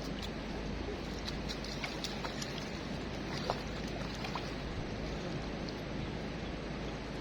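Steady rushing of river water with a low rumble, and a few faint clicks.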